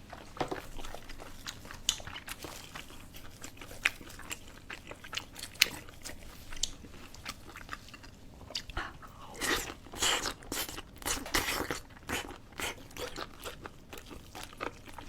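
A person eating crunchy food and chewing, a run of short crisp crunches and bites that bunch up about two-thirds of the way through.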